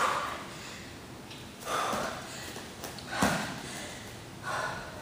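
A woman breathing hard during jump squats, with a sharp exhale about every second and a half, and the soft thud of bare feet landing on a mat.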